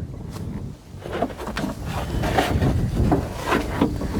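Irregular knocks, clicks and rustling from someone moving about in a tractor cab and handling its controls, over a low rumble.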